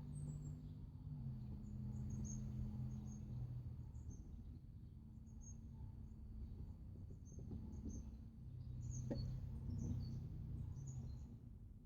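Faint ambience of scattered high chirps from small birds over a low, steady hum.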